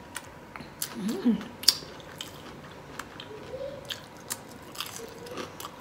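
Close-up chewing and biting of a mouthful of shell-on shrimp and nacho chips, with scattered sharp crunchy clicks and a brief hum of the voice about a second in.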